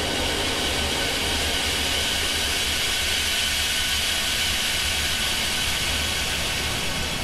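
A steady, even hiss over a low, wavering rumble, with no tune or beat.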